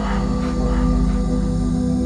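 Calm new-age meditation music: a sustained, steady drone with a few soft higher notes in the first second or so.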